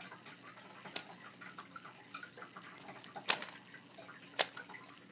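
Plastic 3x3 speed cube being turned by hand: a few sharp clicks as the layers snap round, the loudest about three seconds in.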